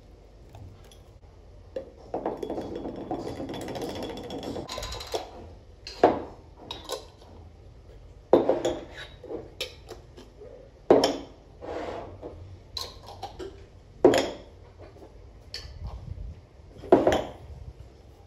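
Kitchen containers being handled and set down on pantry shelves: a few seconds of steady rustling about two seconds in, then five sharp knocks roughly three seconds apart, with small clinks and clicks between.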